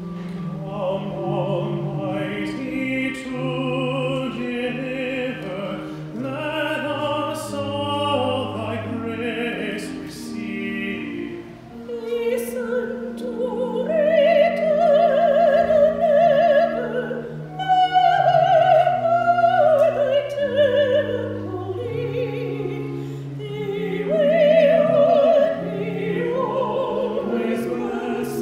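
A man and a woman singing a sacred duet in classical style with vibrato, their voices alternating and overlapping, over long held low accompaniment notes. The higher voice is loudest in the second half.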